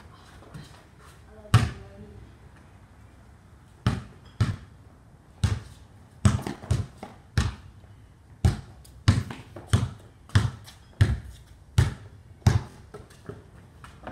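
A basketball bouncing on a concrete driveway as it is dribbled: sharp single bounces, coming about two a second, with a gap of about two seconds after the first bounce.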